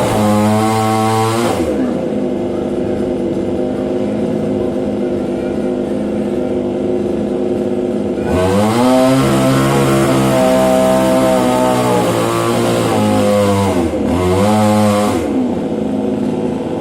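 Chainsaw engine revving high, dropping to idle about two seconds in, then revving up again for several seconds from about halfway. It eases off briefly, revs once more, and falls back to idle near the end.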